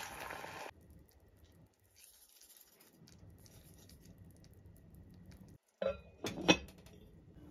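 Background music stops under a second in, leaving a faint kitchen hush. Near the end, kitchenware clatters a few times, the loudest a sharp, ringing clink.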